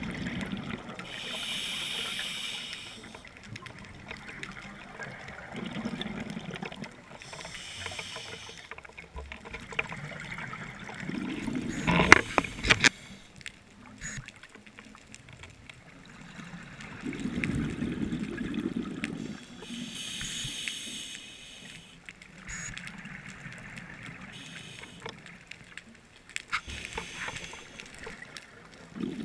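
A scuba diver breathing through a regulator, heard through the camera's underwater housing: a hissing inhale, then a low bubbling exhale, repeating about every six seconds. A short cluster of sharp knocks comes about halfway through.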